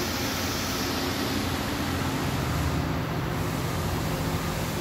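CNC vertical turning lathe running with a steady mechanical hum and a few held tones, the low hum growing a little fuller over the first two seconds.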